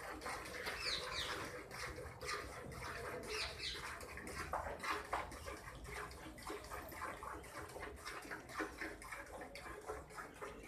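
Cow being milked by hand: milk squirting in short, repeated spurts into a steel pail. Small birds chirp a few times in the first half.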